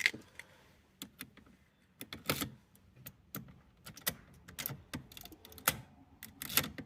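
Irregular sharp metallic clicks and clinks, about a dozen, from a key and ignition lock of a second-generation Chevrolet Cobalt being handled.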